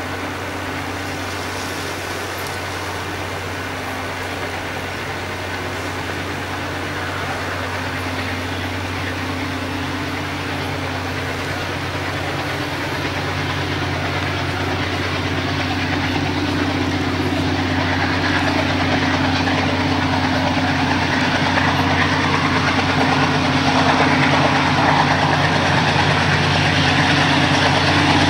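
Two diesel locomotives hauling a container freight train, their engines a steady low drone that grows steadily louder as the train approaches.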